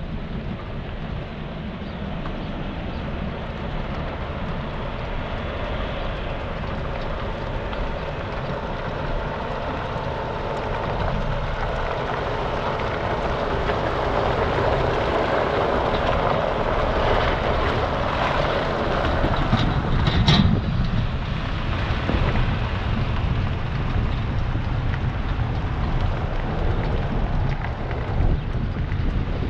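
Low rumble and road noise of a 16-axle heavy-haul trailer's booster axles and tyres rolling under a superload. It grows louder towards the middle, with one sharp clunk about twenty seconds in.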